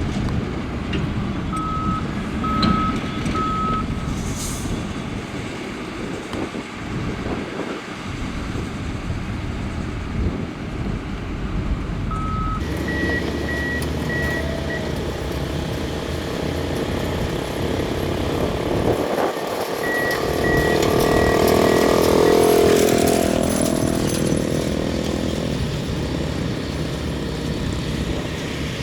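Diesel engines of a bulldozer and dump truck running under load, with reverse alarms beeping in short regular runs; the beeper pitch changes about halfway through. Near the end the engine noise swells to its loudest, rising and then falling in pitch.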